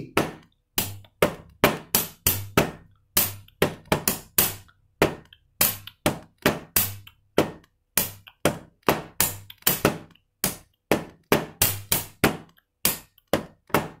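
A hand-and-pen tabletop groove: flat-palm slaps on a glass-topped table give the low beats, alternating with the high taps of a clear plastic pen barrel, in a steady four-beat rhythm. Extra high taps fill beat 4 as a variation on the basic pattern.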